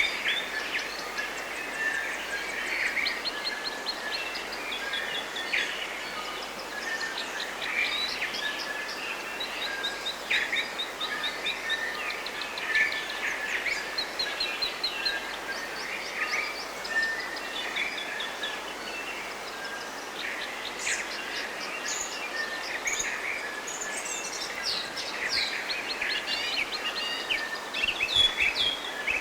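Chorus of several songbirds singing at once: overlapping chirps, whistles and rapid trills, over a faint steady hiss of forest ambience.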